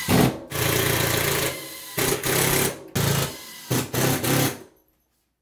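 Cordless drill driving 3-inch screws through a pine 2x4 mounting board into the wall. There is one longer run, then three shorter bursts as the screws seat, and it stops shortly before the end.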